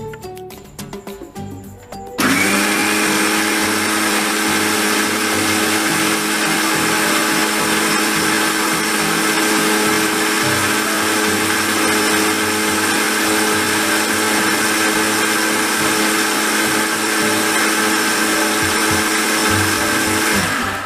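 Electric mixer grinder running with its steel jar, whipping egg whites and oil into mayonnaise. The motor starts abruptly about two seconds in, rising quickly to speed, runs steadily with a high whirring hum, and winds down just before the end.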